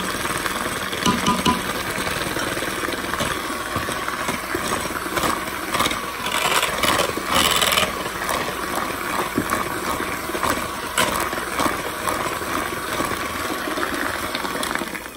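A five-speed electric hand mixer running steadily, its wire beaters churning through thick cake batter, with occasional clicks as they knock the bowl. It switches off near the end.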